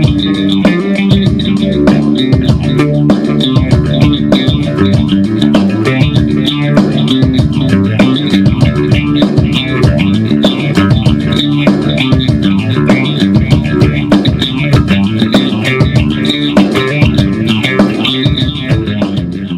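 Outro music: a rock-style track with bass and guitar and a steady beat.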